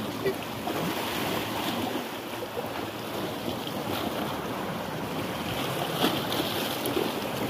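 Sea waves washing and breaking against shore rocks, with wind on the microphone.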